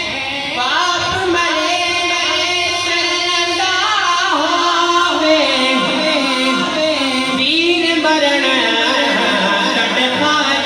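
A man's voice singing an Urdu devotional kalam (naat) in a long, ornamented melody that glides up and down, with musical accompaniment underneath.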